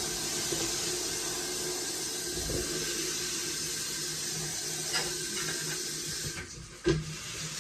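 Kitchen tap running steadily into a stainless steel sink as a vegetable is rinsed under it; the flow stops about six seconds in, and a single knock follows about a second later.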